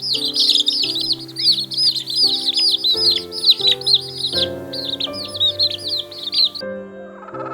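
A dense chorus of small birds chirping rapidly, many high calls a second, over background music with held chords. The chirping cuts off abruptly about six and a half seconds in, and some lower calls follow.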